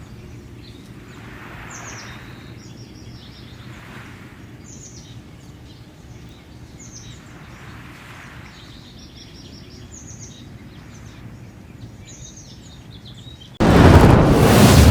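Outdoor shoreline ambience: birds call over and over in short runs of quick, falling chirps above a low steady rumble and soft swells of rushing noise. Near the end a loud rushing noise cuts in suddenly and drowns everything else out.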